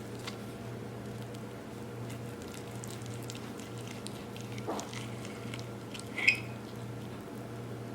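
Steady low hum with small scattered clicks and soft handling noises, and one sharp ringing clink about six seconds in, like a utensil knocking a plate or dish.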